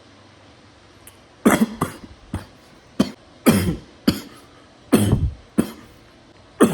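A person coughing hard in a fit: a string of about nine separate coughs, starting about a second and a half in and continuing to the end.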